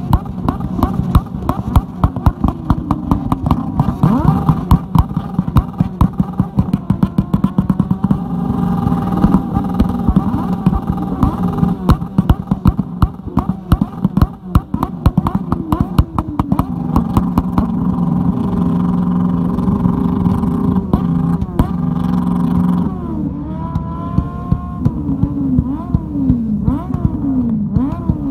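Several sport motorcycle engines held together against the rev limiter, with a dense crackle of exhaust pops and bangs. From about two thirds of the way in, the engines are revved up and dropped back again and again.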